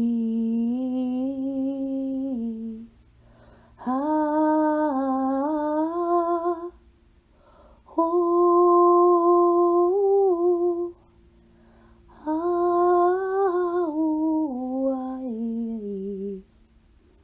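A voice toning in long hummed notes: four held tones of a few seconds each with short pauses between, the last stepping down in pitch near the end.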